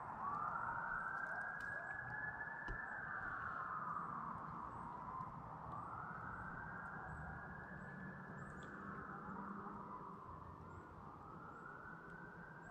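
Faint ambulance siren in its wail pattern, rising and falling slowly about every four to five seconds.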